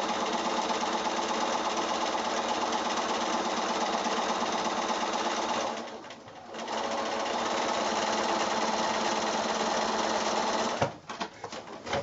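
Bernina sewing machine stitching a quilt seam at a steady speed. It pauses briefly about halfway, runs on again, and stops near the end with a sharp click.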